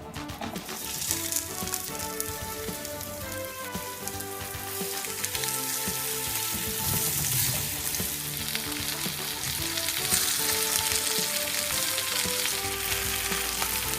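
Breaded chicken thigh pieces shallow-frying in hot canola oil in a pan: a steady sizzle that starts about half a second in and grows gradually louder.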